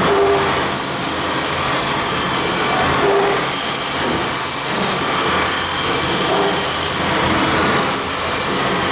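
Automatic knife grinder running, a steady grinding hiss with a short tone and a falling high whine that come back about every three seconds.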